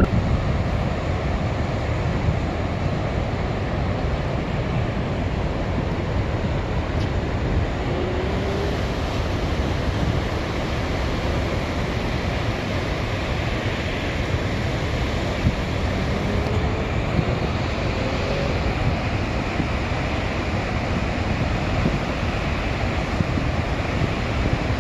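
Steady roar of Niagara Falls' Horseshoe Falls and the rapids above its brink, with wind buffeting the microphone.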